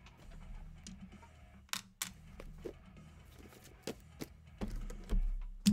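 Cardboard trading-card boxes being handled on a desk: a scatter of light clicks, taps and scrapes as a box is slid out of a stack, ending in a louder thump as it is set down near the end.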